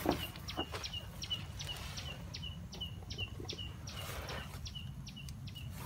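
A bird chirping rapidly: short high notes repeated evenly, about three and a half a second. There is a brief rustle about four seconds in.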